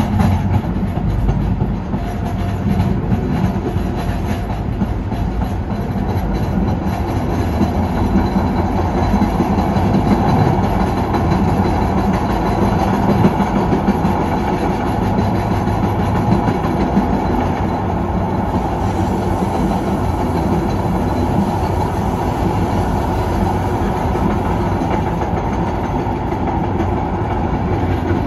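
MBTA Green Line light rail car running, heard from inside: a steady rumble of wheels on rail and traction motor noise while the train is under way.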